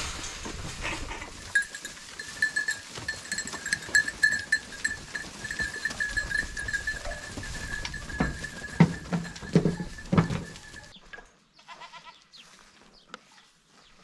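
A herd of goats bleating and bustling as they crowd out of their pen, with short calls a little past the middle and a steady high-pitched ringing tone running underneath. The sound drops away to a much quieter background about eleven seconds in.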